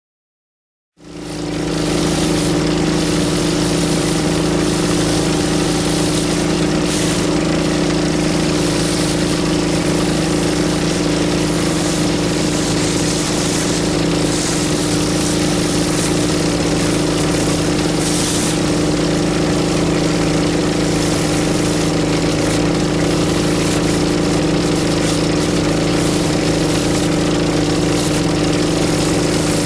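Pressure washer engine running steadily under load, with the hiss of water spraying from a rotary surface cleaner onto concrete. It cuts in suddenly about a second in, after silence.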